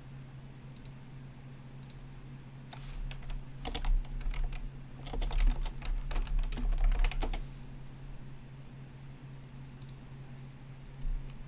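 Typing on a computer keyboard: a quick burst of keystrokes starting about three seconds in and stopping about two-thirds of the way through, with a few stray taps around it, over a steady low hum.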